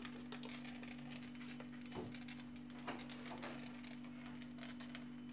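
Chocolate vermicelli sprinkles scattered by hand onto a meringue topping: a faint, scattered light patter and small ticks, over a steady low hum.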